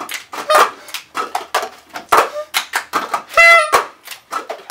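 Cup-game rhythm: several people clapping and tapping and slapping red plastic cups on tabletops, a quick run of sharp claps and hollow knocks, with a brief high voice about three and a half seconds in.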